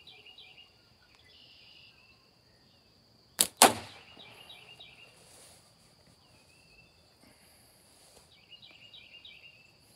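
A slingshot shot: a sharp crack as the bands are released, then a louder crack about a quarter second later as the ball strikes, a glancing hit that barely nicks the top of the target.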